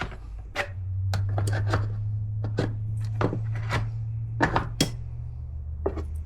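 Scattered sharp metal clicks and light knocks as the factory snap ring is worked into its groove to retain a new wheel bearing in a Can-Am Maverick X3 rear knuckle, over a steady low hum.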